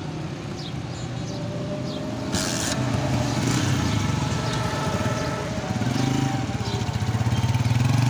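A Honda motorcycle's single-cylinder engine running and then revving as it pulls away, rising in pitch about six seconds in and again near the end. There is a brief hiss about two and a half seconds in.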